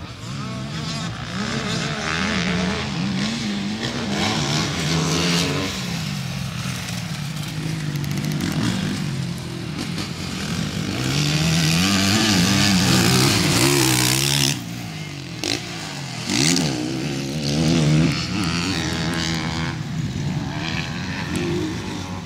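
Motocross dirt bike engine revving up and down over and over as it rides the track. It is loudest a little past the middle, then drops off sharply.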